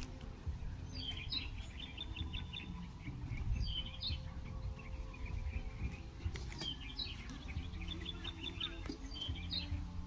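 Small birds chirping in quick repeated trills, with a steady low rumble of wind on the microphone underneath.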